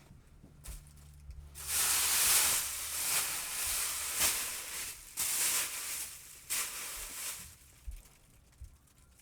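Aerosol spray can hissing in three bursts: a long one of about three seconds, then two shorter ones.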